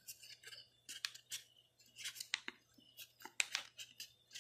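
A sheet of paper crinkling and crackling in the hands as a fold is pressed and pushed inward. The crackles are short and irregular, several a second.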